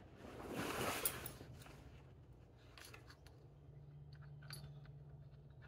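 Rummaging through a fabric backpack: the bag's material rustles about a second in, followed by a few faint clicks and knocks of gear being handled.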